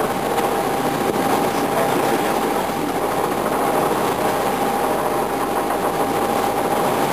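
Small motorboat's engine running steadily under way, with water rushing past the hull and a steady whine held throughout.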